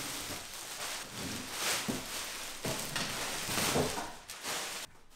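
Thin clear plastic wrapping rustling and crinkling as it is pulled off a folded bedchair, with a couple of knocks mixed in. It stops suddenly near the end.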